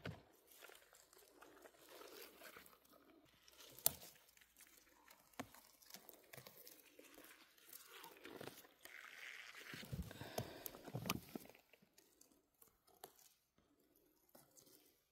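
Faint crunching and crackling of leaf litter, moss and twigs on a forest floor, with scattered sharp snaps. The loudest snap comes about four seconds in, and a louder stretch of crunching and rustling follows around ten seconds in before it goes quiet.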